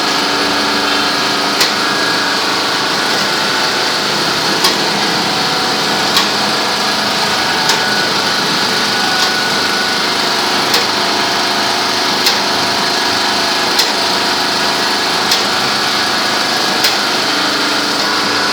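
Automatic snack packing machine running steadily, with a sharp click about every second and a half.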